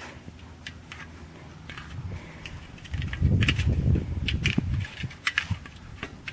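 Crunching and clicking of icy crusted snow as a dog chases and pushes its egg toy across it, with many sharp crackles. A loud low rumble comes in about three seconds in and fades out nearly two seconds later.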